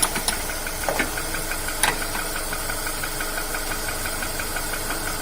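Car engine idling steadily. In the first two seconds there are a few sharp metallic clicks from the tools as the steering tie rod is tightened.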